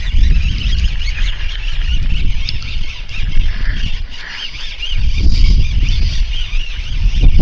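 Wind buffeting the microphone in gusts, easing briefly midway, with birds chirping and squawking faintly behind it.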